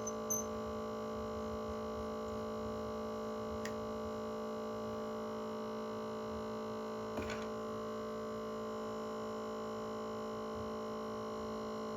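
Steady electrical hum of a phone screen separator machine with its vacuum suction running, with a few faint clicks.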